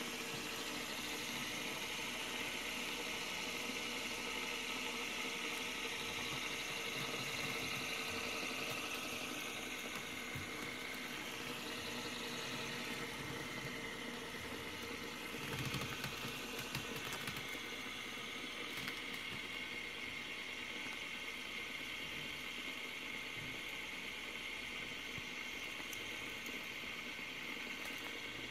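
Black and silver fidget spinner spinning flat on a wooden desk, its bearing giving a steady whir. A few light knocks come about halfway through.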